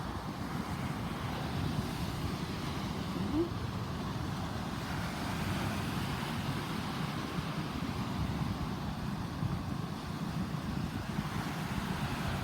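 Heavy typhoon swell and surf on the shore making a steady, deep roar, with wind buffeting the microphone.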